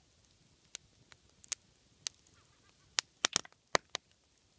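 Wood fire crackling: sharp, irregular pops from the burning logs, with several in quick succession about three seconds in.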